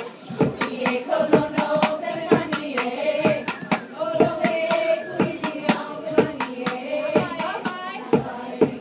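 Hula kahiko chant: a voice intoning the mele on long, held, slightly wavering pitches, with ipu (gourd drum) strikes keeping a beat about twice a second.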